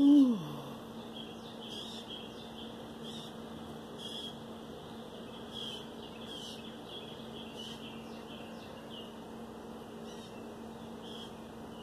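Small birds chirping again and again over a steady low hum. Right at the start comes one short, loud call that falls in pitch, the loudest sound.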